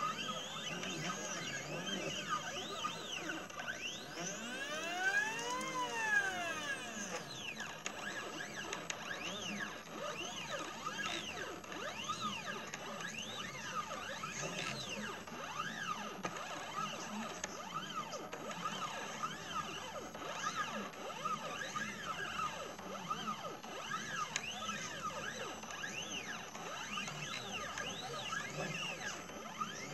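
Stepper motors of a CNC 2418 laser engraver whining in quick rising and falling pitch sweeps as the laser head speeds up and slows down along its engraving moves, with one longer, louder sweep about five seconds in.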